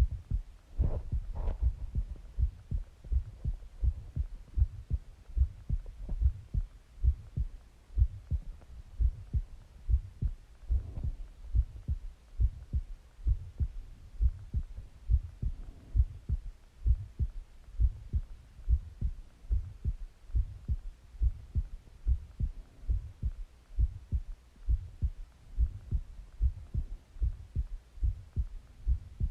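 A person's heartbeat heard up close against the chest, beating steadily in even low thumps. A brief brighter sound comes about a second in and again around eleven seconds.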